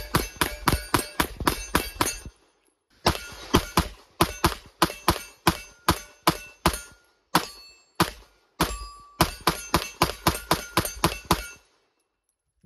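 Rapid pistol fire from a factory-ported Smith & Wesson M&P Performance Center Carry Comp compact: quick strings of shots, about five a second. There is a short break about two seconds in and a couple of brief pauses around seven to eight seconds in. The firing stops shortly before the end.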